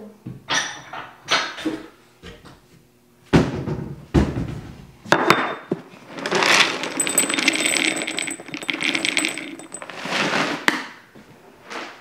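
Dry parrot pellets rattling and clicking into a bowl in a dense run of small clicks lasting a few seconds, among separate knocks and clinks of kitchen dishes.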